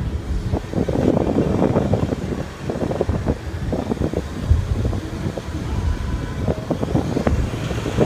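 Cold-room refrigeration condenser unit running with a steady low drone, overlaid by irregular gusty buffeting of wind on the microphone.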